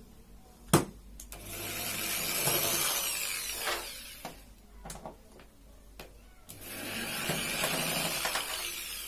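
Corded electric drill with a screwdriver bit backing screws out of a TV's plastic rear panel. It runs in two spells of about three seconds each, its whine rising and then falling in pitch as the trigger is squeezed and released. There is a sharp click just under a second in.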